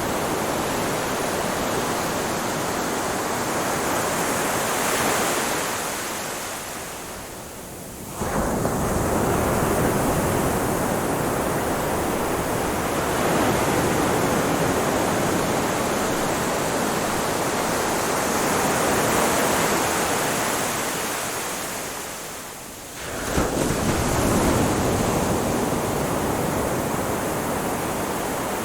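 Ocean surf: a continuous rushing wash of waves that fades twice and surges back suddenly, about 8 and 23 seconds in.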